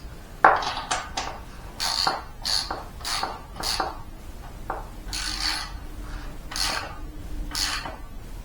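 Ratchet wrench worked in short strokes, a series of brief clicking rasps about every half-second to second, with a sharp knock about half a second in: tightening a new NGK BPR6ES spark plug into the Honda pressure washer engine's cylinder head.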